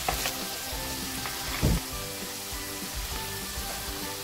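Potato chunks sizzling as they fry in olive oil in a pan and are turned over, with a single dull knock about one and a half seconds in.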